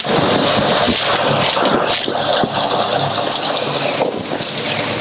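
Steady rush of water from a partly frozen waterfall, with light knocks or crunches scattered through it.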